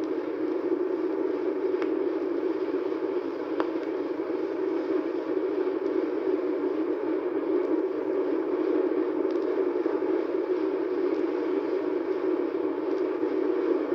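Steady drone of RMS Queen Elizabeth's steel propeller shafts turning in the shaft gallery below the waterline, with the rhythmic splashing of the outboard propellers just outside the hull. It is played from a vinyl record, with a few faint clicks.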